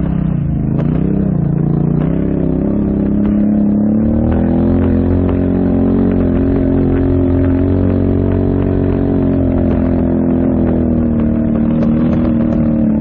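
ATV engine running: the revs waver and dip in the first second and a half, climb over the next couple of seconds, then hold high and steady, easing off a little near the end.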